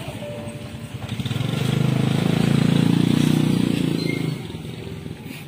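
A motor vehicle passes close by. Its engine swells over about a second, holds, then fades away about four seconds in.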